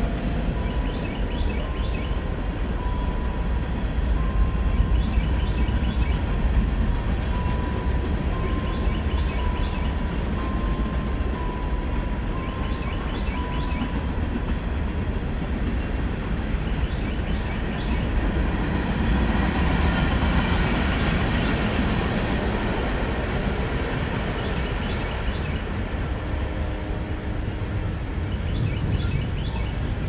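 Train passing: a continuous low rumble of rolling rail wagons, with a faint steady high tone through roughly the first half.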